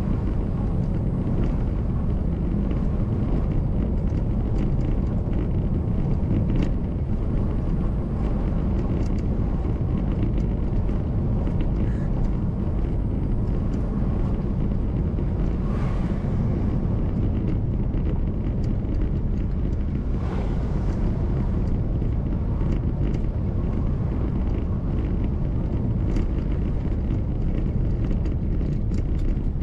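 Car driving along a road: a steady low rumble of engine and tyre noise, with occasional faint ticks and a couple of brief hisses.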